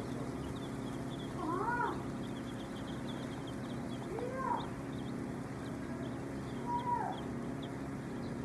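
A large flock of young chicks peeping constantly, a dense high chatter over a steady low hum. Three louder, drawn-out calls that rise and then fall in pitch stand out from the peeping at about two-second intervals.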